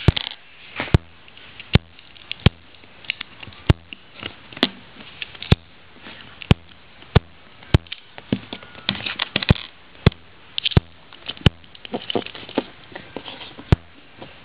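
Plastic Lego bricks being handled and pressed together: sharp clicks about once a second, with rustling and handling noise between them.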